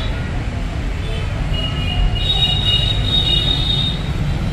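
Street traffic noise, a steady low rumble, with a high thin squeal from about a second and a half in to about four seconds.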